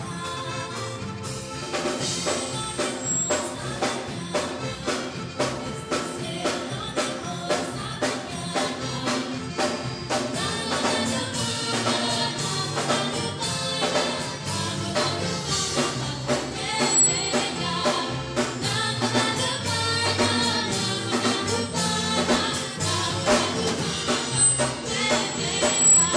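Live band music with singing: a small ensemble of saxophones, acoustic guitar, bass guitar and drum kit.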